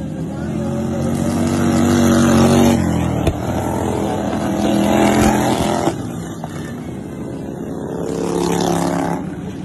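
Racing lawn mower engines passing close by about three times in a row. Each one gets louder as it approaches and drops in pitch as it goes past.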